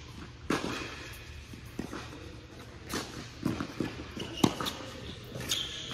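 Tennis rally on an indoor court: a string of sharp pops from the ball meeting racquet strings and bouncing on the court, each echoing briefly in the hall. The loudest comes about four and a half seconds in, and a brief high squeak follows near the end.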